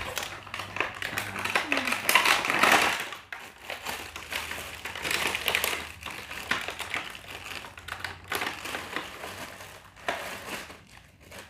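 Clear plastic packaging bags crinkling and rustling as hands open and unwrap the camera accessories, in irregular bursts that fade toward the end.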